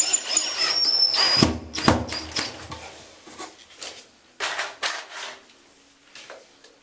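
Power drill running into soft cedar 2x2 with a high whine for about the first second and a half, then stopping; a few sharp knocks follow, then scattered lighter knocks and clicks of wood and tool handling.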